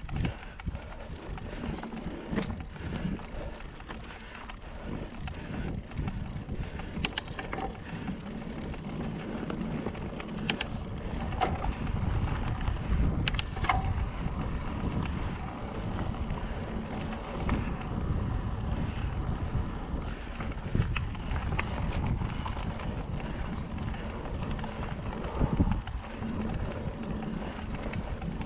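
Wind buffeting the microphone: an uneven low rumble, with a few faint clicks.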